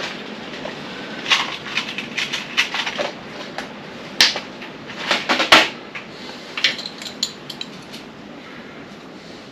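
Small metallic clinks and clicks of hand tools and hose clamps being handled while a fuel line is fitted and cut to length, with two sharper snaps around the middle.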